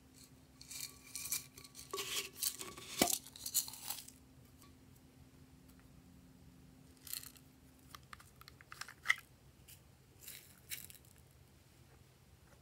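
Dry glitter and sprinkles shaken out of paper cups onto slime in a glass dish: clusters of scratchy, crackling rustles. They are busiest in the first few seconds, with a sharp tap about three seconds in, and a few shorter bursts come later.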